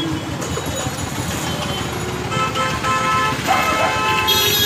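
Busy town-street traffic: engines and a din of voices, with vehicle horns tooting repeatedly in the second half, loudest near the end.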